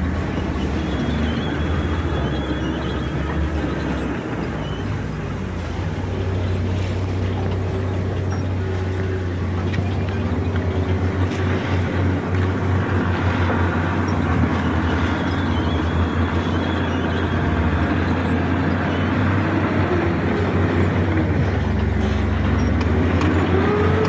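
Heavy diesel engine of a bulldozer running steadily under load, rising in pitch near the end.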